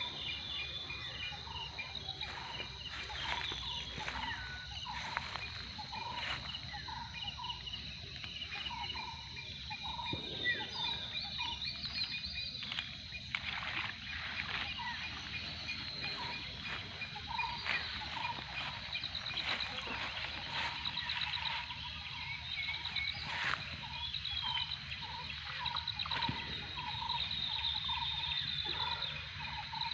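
Outdoor natural ambience: insects trilling steadily in a high, fast pulse, with a short call repeating about once a second and occasional bird calls. A few sharp clicks or knocks are heard now and then.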